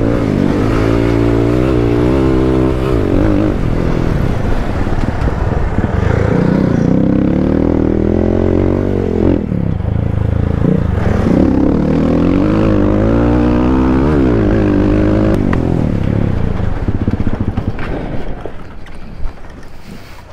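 Off-road motorcycle engine under way on a dirt trail, revving up and easing off several times so its pitch rises and falls. The sound drops away near the end.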